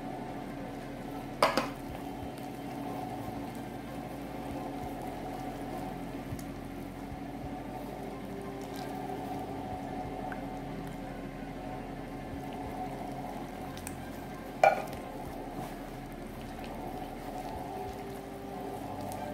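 Gloved hand squishing and mixing flour with coconut milk in a plastic bowl, a steady wet rustle. Two sharp knocks, one about a second and a half in and one near the end.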